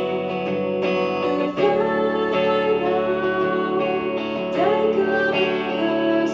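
A live band playing, led by strummed and picked guitars, with sustained chords that change a few times.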